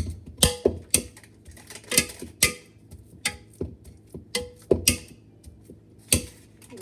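Banana masher knocking against a mixing bowl while mashing bananas: about a dozen uneven knocks, roughly two a second, each with a short ring from the bowl.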